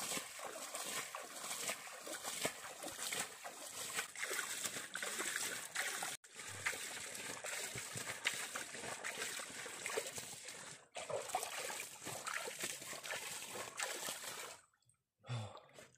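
Shallow muddy pond water splashing and sloshing irregularly as a person wades and churns the water. The sound breaks off sharply twice, about six and eleven seconds in.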